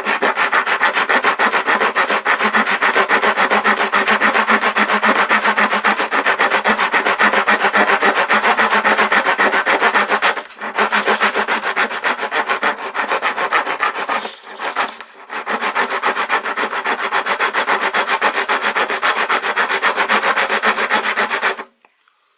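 Coarse half-round steel woodworking rasp (a Daiso 100-yen file) scraping wood in steady, rapid back-and-forth strokes. It pauses briefly twice, about ten and fourteen seconds in, and stops about a second before the end.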